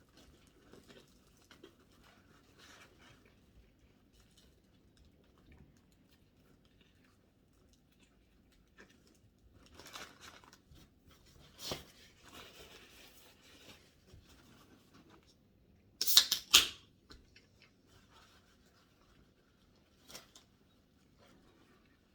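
Quiet rustling and handling of a paper-wrapped sub sandwich, with a short, loud burst of paper crackling about sixteen seconds in.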